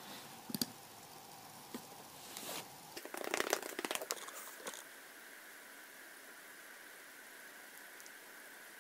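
Close handling noise: a few sharp clicks in the first two seconds, then a burst of rustling and crackling about three to four and a half seconds in, as an arm brushes right by the microphone.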